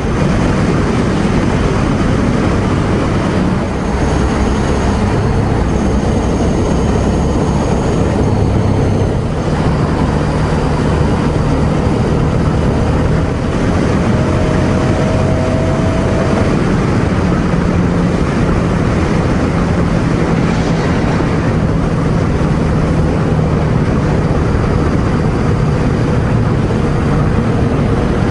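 Ducati Scrambler Sixty2 motorcycle's air-cooled L-twin engine running steadily at expressway cruising speed, under heavy wind and road noise.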